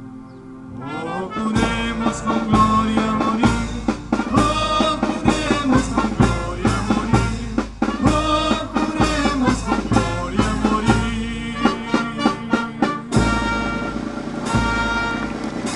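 Brass band with trumpets and trombones playing under a conductor, with steady drum strokes beneath the brass chords. A held chord fades at the start, the band comes back in with the drums about a second and a half in, and near the end the drums drop back under a held chord.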